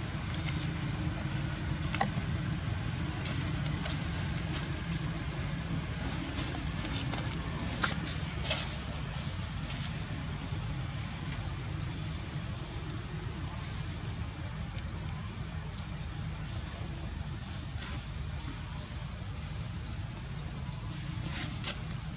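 Outdoor ambience: a steady low rumble under a high, uneven insect buzz, with a few sharp clicks, the loudest pair about eight seconds in.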